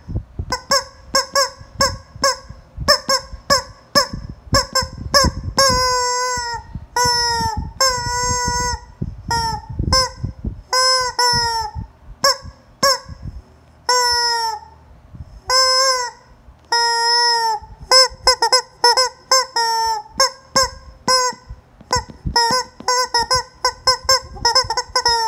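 A hen giving loud, honking calls over and over, each note bending down in pitch. The notes are short and quick at first; from about six seconds in they come as longer calls spaced apart.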